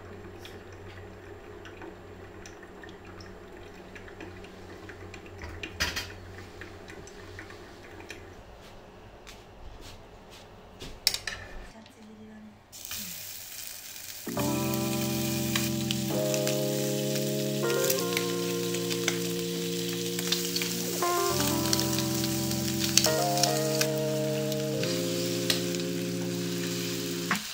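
Food sizzling as it fries in a pan, starting about halfway through, with music playing over it shortly after. Before the sizzle there is only a low hum and a couple of clicks.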